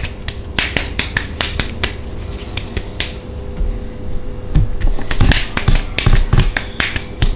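Wet clay slapped and patted between a potter's palms to form a ball: a quick, irregular run of sharp slaps that turn heavier and more thudding about halfway through.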